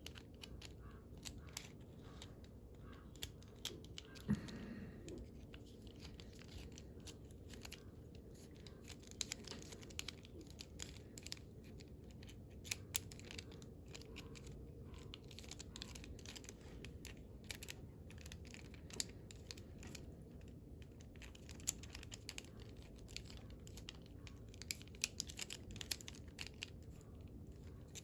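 Scattered small metal clicks, taps and scrapes from a steel padlock being taken apart with a Phillips screwdriver, with one louder knock about four seconds in, over a steady low hum.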